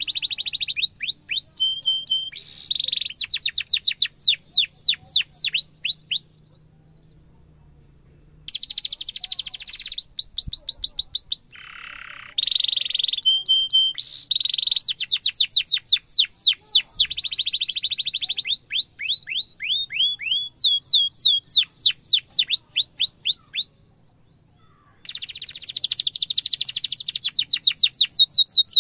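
Domestic canary singing in long rolling phrases: rapid runs of repeated falling whistled notes, about five or six a second, mixed with dense buzzy trills and short held notes. The song breaks off twice for a second or two, after about six seconds and again near the end.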